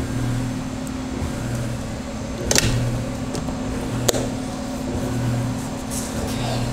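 A low hum that swells and fades about once a second, with a sharp click about two and a half seconds in as the rotary phone's handset is hung up on its cradle, and a second click about a second and a half later.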